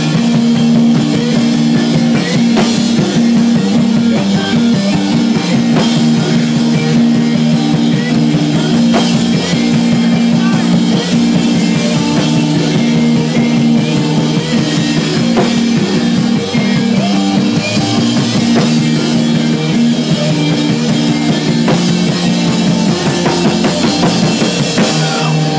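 A live math-rock/emo band playing loud on drum kit, electric guitar and bass. The drumming is dense, over low guitar and bass notes that shift in steps.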